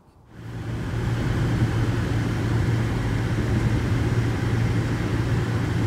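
Steady engine and road noise heard from inside the cabin of a 1999 Toyota 4Runner on the move, with a strong low hum; it cuts in suddenly just under half a second in.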